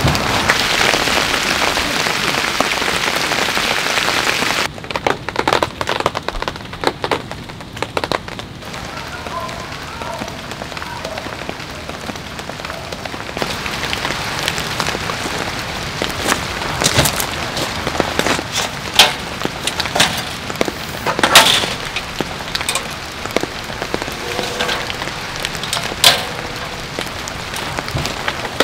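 Heavy rain falling steadily on a tent, louder for the first five seconds or so. Over it come scattered sharp knocks and clicks of gear being handled on a metal camp table, the loudest about three-quarters of the way through.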